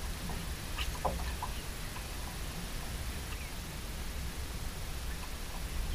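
Low steady rumble of wind on the camera microphone, with a few faint short clicks and chirps about a second in.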